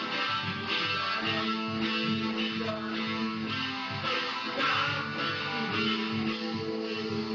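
Electric guitar played through an amp, picking a lead line over a recorded rhythm guitar backing track.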